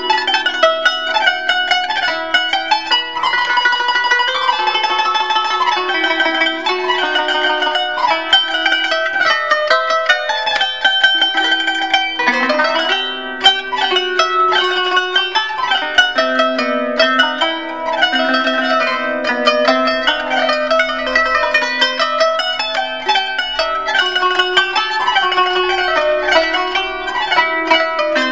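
Instrumental background music: quick runs of plucked-string notes over sustained low notes.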